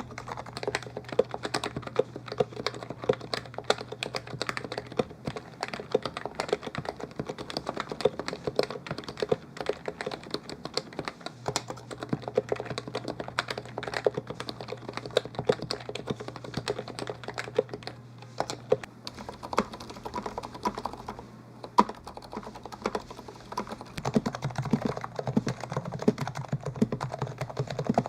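Continuous fast typing on an HHKB (Happy Hacking Keyboard), a dense run of several keystrokes a second, with a brief lull about three-quarters of the way through.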